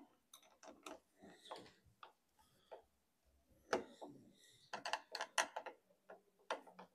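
A spanner turning the bolt of a soil-pipe clip to tighten it: a run of light, irregular metallic clicks and taps.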